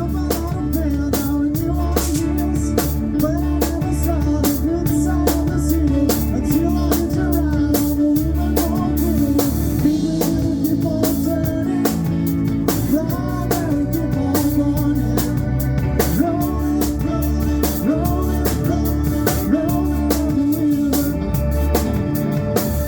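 Live rock band playing with a steady beat: drum kit, bass and electric guitar.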